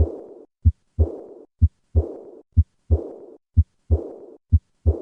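Heart sounds of aortic regurgitation at about one beat a second. A short first sound is followed by the second sound, and a high-pitched, fading diastolic murmur starts at the second sound and dies away over about half a second.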